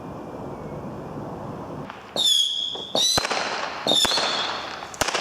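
Fireworks going off: after a low rumble, a rapid series of whistling fireworks starts about two seconds in, each a shrill whistle opening with a sharp crack, about one a second, mixed with bangs.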